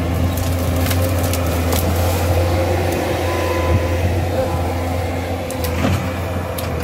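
Compact track loader's engine running steadily as its bucket pushes into a pile of cut branches and brush, with twigs and branches snapping and crackling several times.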